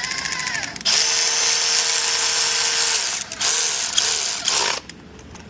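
Power tool running in bursts: a short whine in the first second, then a loud run of about two seconds with a steady hum over a hiss, then a few shorter bursts.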